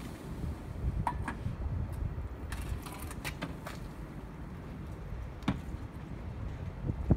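Wind rumbling on the microphone, with a few light clicks and knocks scattered through, several in a quick cluster about three seconds in.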